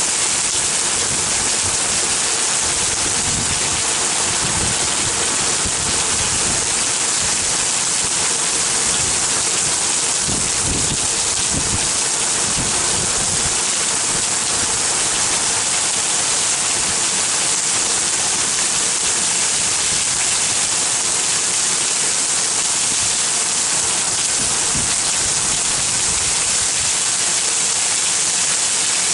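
Heavy thunderstorm downpour: a loud, steady, even hiss of rain, with water streaming down the window glass.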